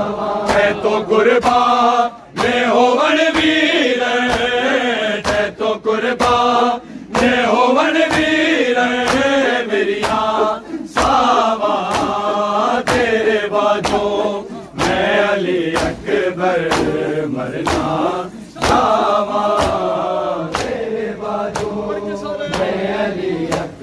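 Crowd of men chanting a Punjabi noha, a lament for Ali Akbar, in unison, with the steady slap of hands beating bare chests in matam keeping time, a little under two strikes a second.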